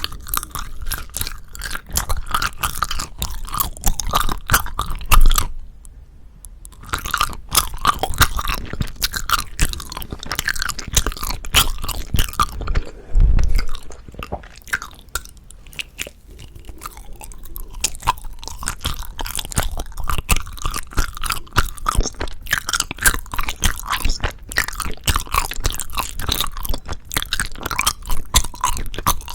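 Close-miked chewing of soft, sticky rice cake (tteok): a dense run of wet mouth clicks and smacks, pausing briefly twice, with two louder low thumps about five and thirteen seconds in.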